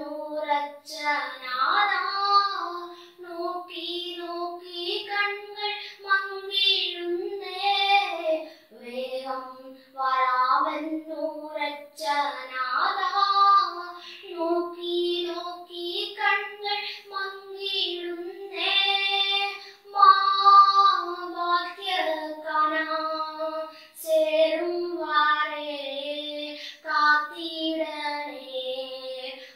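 A young girl singing a Christian gospel song solo and unaccompanied, in held phrases with short breaks for breath.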